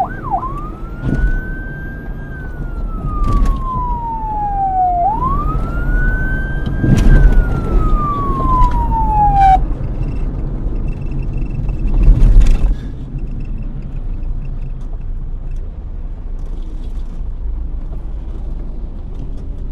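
Police siren on a vehicle switching from a fast yelp to a slow wail, rising and falling twice and then cutting off suddenly about ten seconds in. Low traffic rumble goes on after it, with a brief loud noise a couple of seconds after the siren stops.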